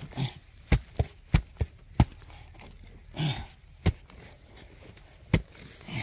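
Hand digging tool chopping into hard-packed soil: a quick run of about seven sharp strikes in the first two seconds, then two more spaced further apart.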